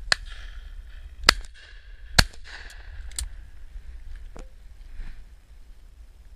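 An over-and-under shotgun, a Miroku MK70, fired twice in quick succession, the two shots about a second apart, with fainter single cracks around them.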